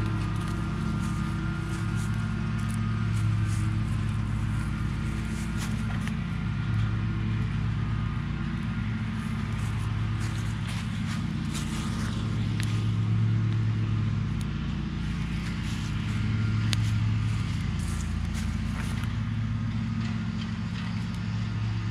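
Small wood fire crackling in a metal fire pit, with scattered sharp pops, over a steady low motor hum.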